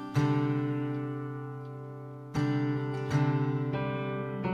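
Acoustic guitar strumming slow chords, struck three times and each left to ring and fade, in an instrumental passage of worship music.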